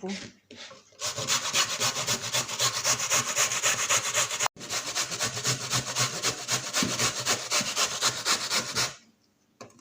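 Carrots being grated by hand on a grater: quick, rhythmic rasping strokes, about four a second, with a brief break about halfway through.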